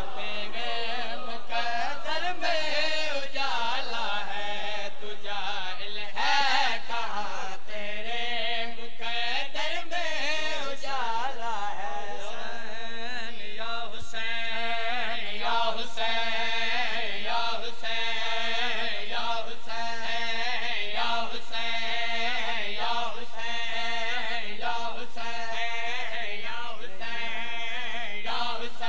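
A group of men chanting a noha (Shia lament) together in a sung, drawn-out melody. From about halfway a steady rhythmic beat runs under it, typical of matam (chest-beating) keeping time with the noha.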